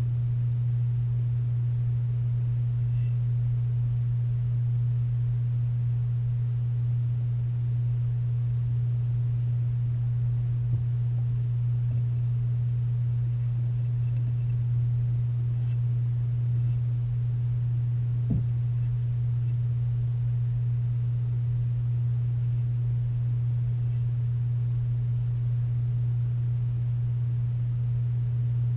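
Steady low electrical hum of a submersible filter pump, heard underwater, with a couple of faint knocks in the middle.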